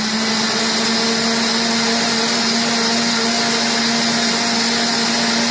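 KitchenAid K400 blender's 1200-watt motor running its cleaning cycle, the blades churning a jar of water and dish soap. It holds a steady motor tone at one speed over the rush of the sloshing liquid.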